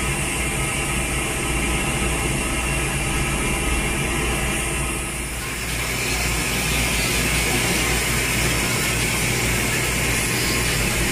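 Steady mechanical hum with hiss from dental clinic equipment. About halfway in the sound shifts and a brighter hiss comes up.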